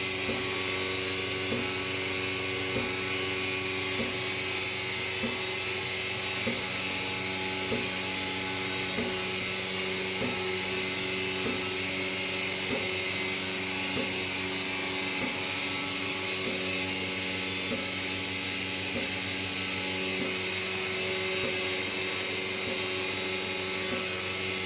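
Milking parlour machinery running steadily, a constant motor hum and hiss with a regular click about every second and a quarter.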